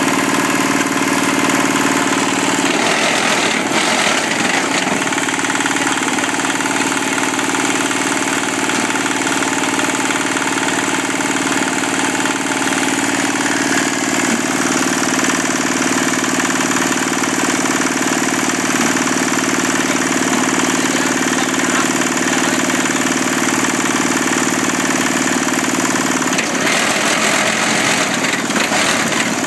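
Single-cylinder diesel engine of a concrete block machine running steadily at a fast idle. A rougher, noisier sound rises over it twice, about three seconds in and again near the end.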